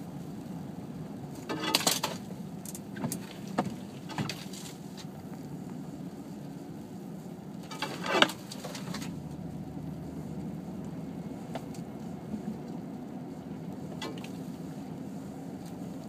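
Car driving slowly on a snowy driveway, heard from inside the cabin as a steady low drone. A few sharp crackles and knocks break in about two seconds in, again around three to four seconds, and loudest about eight seconds in.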